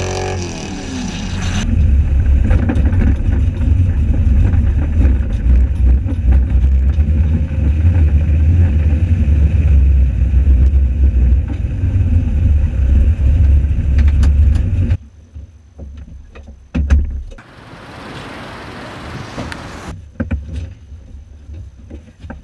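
LS3 V8 of an RCR Ferrari 330 P4 replica rumbling at low speed, heard from inside the cockpit. About fifteen seconds in the engine sound stops suddenly, leaving quieter sounds with a single sharp knock.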